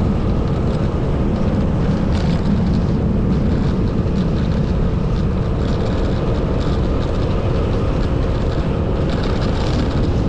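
Motorcycle riding at a steady pace: a continuous rush of wind and road noise over the microphone, with the engine's steady hum underneath.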